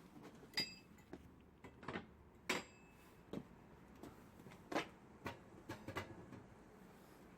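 Irregular light knocks and clinks of hard objects, about a dozen, with two of them ringing briefly with a metallic tone.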